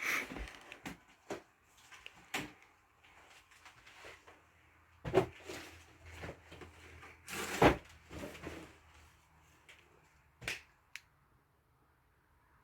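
Scattered knocks and clicks, with louder thuds about five and seven and a half seconds in and a sharp knock near ten seconds.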